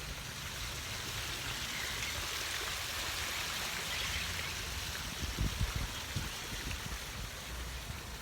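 Running water in a garden pond, a steady splashing hiss, with a few low thumps about five seconds in.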